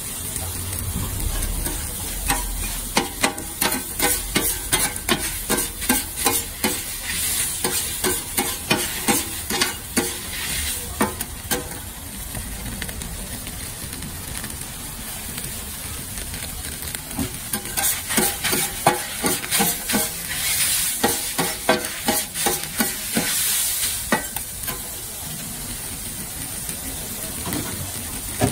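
Rice noodles stir-frying on a flat iron griddle: a steady sizzle, broken by two long runs of quick metal spatula strokes clacking and scraping on the plate, about two or three a second, with only sizzling between them and near the end.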